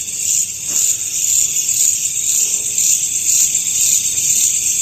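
Dense chorus of night insects: a steady, high-pitched, shrill trilling.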